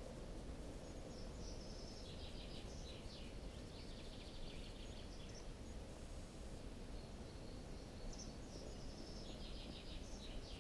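Small bird chirping in two runs of rapid, high-pitched chirps, the first from about a second in to past the middle, the second starting near the end, over steady low background noise.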